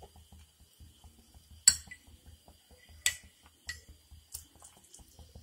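Steel ladle clinking against a cooking pan of boiling soup stock: about four sharp, separate clinks with a brief ring, the loudest a little under two seconds in.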